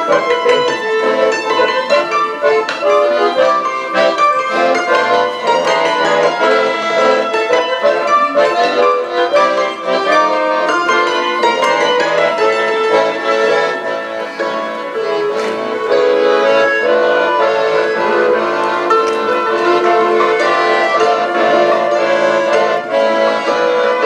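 Accordion and table gusli playing an instrumental tune together: sustained accordion chords under quick plucked-string notes, at an even loudness.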